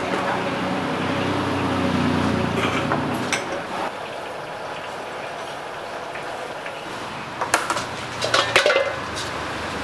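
A steel wok clanking several times against a gas burner stand, a cluster of sharp metal knocks in under two seconds near the end. Earlier, a passing motor vehicle's engine hums, rising and falling.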